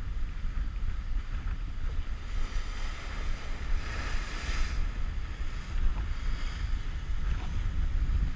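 Wind buffeting the microphone over surf washing against a rocky shore. A wave breaks against the rocks below, swelling into a loud rush of white water about three to five seconds in.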